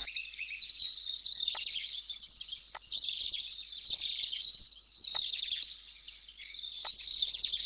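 A dense chorus of many small birds chirping continuously, a high twittering, with a few sharp clicks scattered through it.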